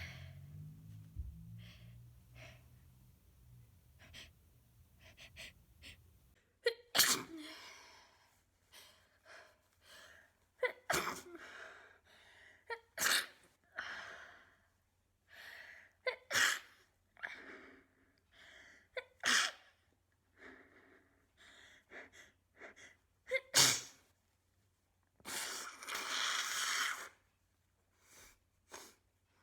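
A person with a heavily congested head cold sneezing in a messy fit, sharp sneezes a few seconds apart with wet, stuffy breathing between them. Near the end comes a nose blow lasting about two seconds.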